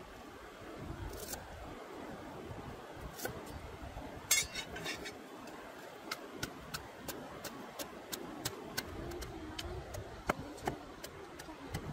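Pestle pounding chilies, garlic and salt in a wooden mortar, in sharp strokes about three a second from about halfway in, after a few scattered knocks.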